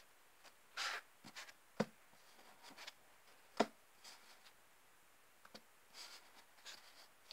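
Paper stickers and a sticker sheet being handled, faint: a short rustle about a second in, then a few sharp taps, the loudest at about three and a half seconds, and small scattered clicks.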